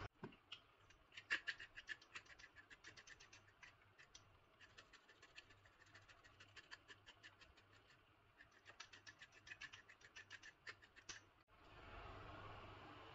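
Pepper grinder being twisted over a pot: a long run of faint, quick ticking clicks with a couple of short pauses, stopping about eleven seconds in. A soft hiss follows near the end.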